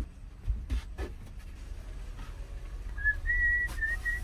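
A person whistling a short tune of clear, stepping notes, starting about three seconds in. Before it come a few light knocks as a long piece of lumber is slid into the back of a minivan.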